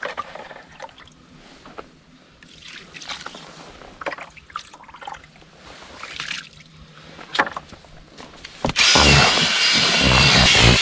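Soft rustling and scraping of groundbait being worked by hand. About nine seconds in, a much louder steady whirring noise with a pulsing low rumble starts and keeps going.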